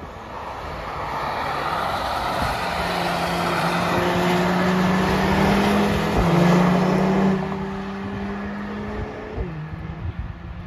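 Mercedes-AMG cars accelerating past on the track, the engine note swelling and rising in pitch, dropping once about six seconds in at a gear change, then rising again before it falls away near the end.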